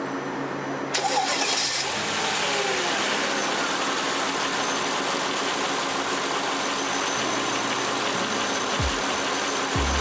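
Mercedes CL55 AMG supercharged V8 starting about a second in: the revs flare on catching, fall back over the next couple of seconds, and it settles into a steady idle.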